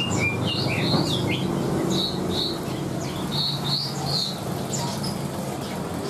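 Several caged songbirds chirping, with many short high calls overlapping at an irregular pace, over a low steady hum.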